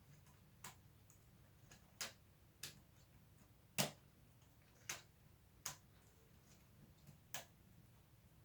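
Lego Technic pieces clicking and tapping as they are handled and pressed together: about seven small, sharp clicks at irregular intervals, the loudest a little under four seconds in.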